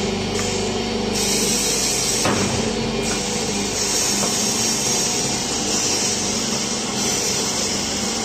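Double-head wood-stick hole-drilling machine running on its automatic cycle: the motors run steadily while the drill bits bore into the wooden sticks. A hissing cutting noise rises and falls as the repeated feed strokes go in and out.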